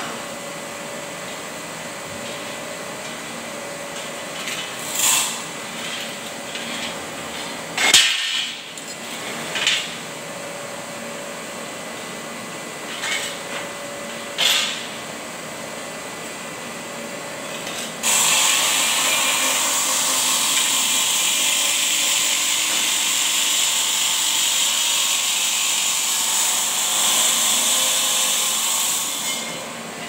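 A few sharp knocks and clanks as pieces are handled on the workshop floor. About 18 s in, a handheld power tool starts cutting with a loud, even, hissing noise and runs steadily until it stops shortly before the end.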